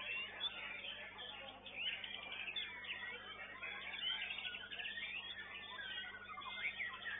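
Several white-rumped shamas singing at once: a dense, unbroken stream of quick whistled phrases, trills and chips, with a steady low hum underneath.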